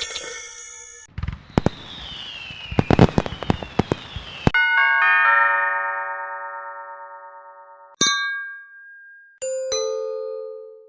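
A run of short sound effects. First comes a fast, pulsing ring. Next, a falling whistle with a burst of sharp cracks, like a firework. Then a long chime chord fades away, a single bright ding sounds, and two lower notes close it, like a ding-dong doorbell chime.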